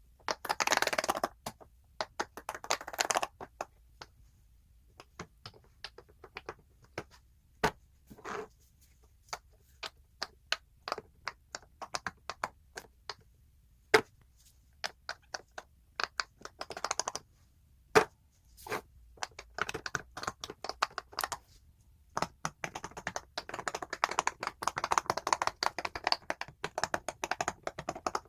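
Silicone pop-it fidget toy bubbles being pressed and popped with the fingers: quick runs of many pops near the start, in the middle and toward the end, with single pops spaced out in between.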